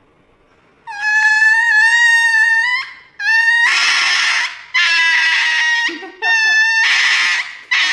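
A small white puppy screaming in long, high-pitched cries, about four of them starting about a second in, in pain and fear as it is given an injection.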